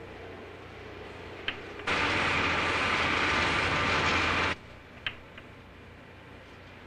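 Hotel elevator running: a steady rushing noise that starts abruptly about two seconds in and cuts off suddenly about two and a half seconds later, with a few faint clicks before and after.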